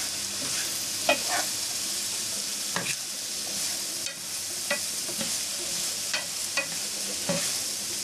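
Chopped vegetables sizzling steadily in a hot pan while being stir-fried, with a utensil scraping and clacking against the pan at irregular moments.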